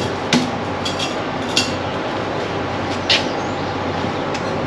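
Metal exhaust pipe pieces clinking against each other three times as they are handled and fitted together, over a steady noise running throughout.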